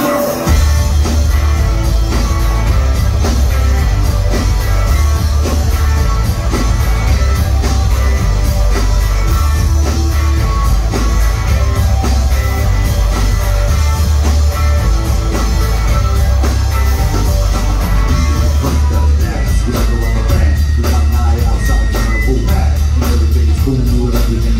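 Live rock band playing loud through a concert PA, heard from the audience: heavy bass and drums with electric guitar, the full band coming in about half a second in.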